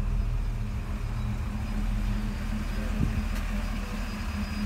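The original factory exhaust of a 1979 Pontiac Trans Am 10th Anniversary Edition's V8 idling, a steady low rumble, with one faint click about three seconds in.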